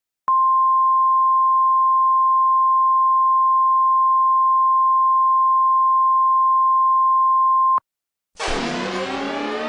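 A weather-radio-style emergency alert tone: one steady pitch held for about seven and a half seconds, cutting off sharply. About half a second later a loud, dense swell of many layered tones starts, eerie music with a siren-like quality.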